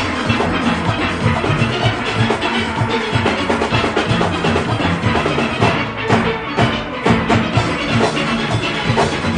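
A steel band performing: many steelpans struck together in a fast, rhythmic arrangement, with lower-voiced pans and a driving drum beat underneath.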